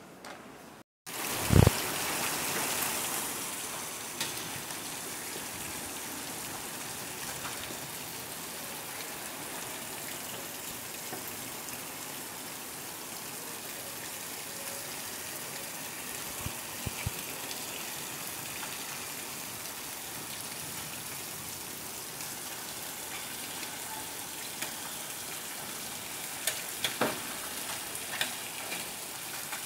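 Heavy rain pouring down in a storm: a steady hiss, a little louder at first, with a few sharp knocks now and then.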